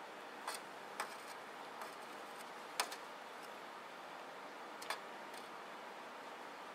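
Light metal clicks and taps as locking pliers gripping a knife blade knock against the metal pan of quenching oil, about six at uneven intervals, the sharpest about three seconds in, over faint steady hiss.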